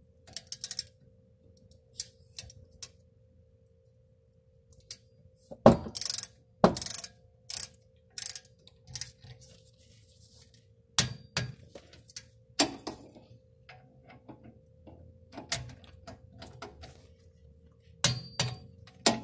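Socket wrench with a hex bit working on a brake caliper's guide-pin bolt: scattered metal clicks and clanks as the bolt is tightened, the loudest pair about six seconds in. A faint steady hum runs underneath.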